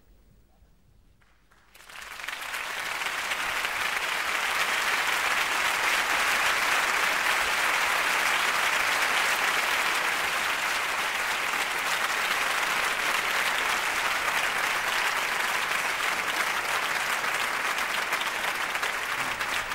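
A concert audience applauding: after about two seconds of near silence the applause starts suddenly and then holds steady.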